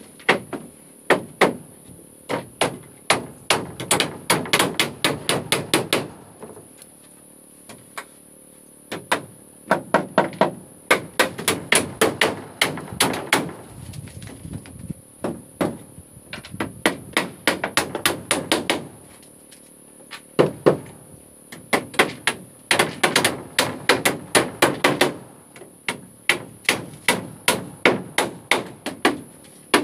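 Hammers nailing wooden floorboards down, in quick runs of sharp blows, several a second, broken by short pauses.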